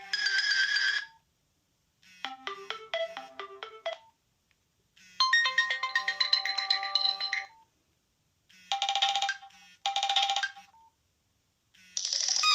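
Nokia C2-01 phone ringtones: several short electronic melodies played one after another, each cut off into complete silence before the next begins.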